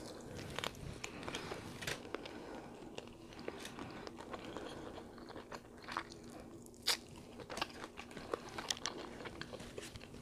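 A person biting and chewing seafood-boil food close to the microphone, with scattered sharp, wet mouth clicks and smacks.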